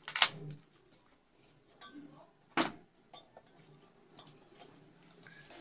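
A few sharp clinks from a steel mixing bowl handled while besan batter is mixed in it by hand. The loudest comes just after the start and another about two and a half seconds in, with fainter ticks between.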